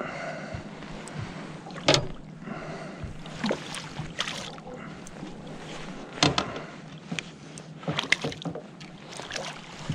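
A small black bream splashing and thrashing at the water's surface as it is played beside the boat, in irregular splashes, the loudest about two seconds in and about six seconds in.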